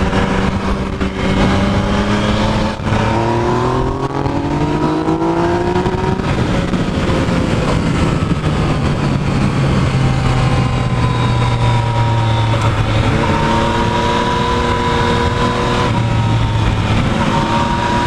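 Yamaha FZ-09's inline three-cylinder engine running under way, its pitch rising as it accelerates a few seconds in and again about two-thirds of the way through, over a steady rush of wind.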